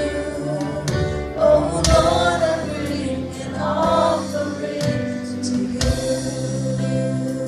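Live gospel worship music: voices singing over a band with drum kit and electric guitar, with drum strikes standing out now and then.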